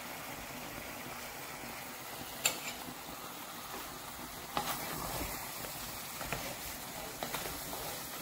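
Chicken pieces simmering in a pot of bubbling liquid, a steady low hiss. A wooden spatula stirs them, giving a few light knocks against the pan from about two and a half seconds in.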